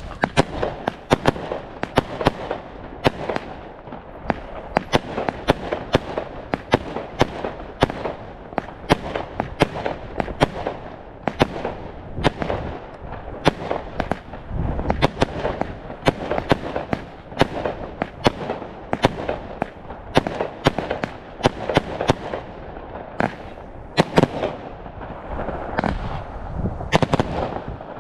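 New Year's Eve fireworks and firecrackers going off all around: a dense, continuous crackle of sharp bangs, several a second, over a steady rumble of more distant bangs.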